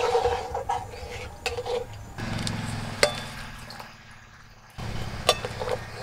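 Metal spatula clinking and scraping against an iron wok while stirring a simmering fish curry, with a few sharp clinks. A steady low rumble starts about two seconds in and breaks off briefly just before five seconds.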